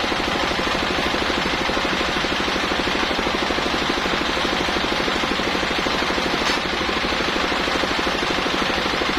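Circular saw rig running hard, its blade cutting through coconut-palm wood, with a rapid, even pulsing from the machine under it.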